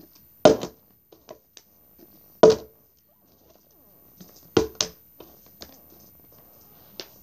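A partly filled plastic water bottle being flipped and thudding down on the floor three times, the third landing bouncing twice in quick succession. Light clicks of the bottle being handled come between the throws.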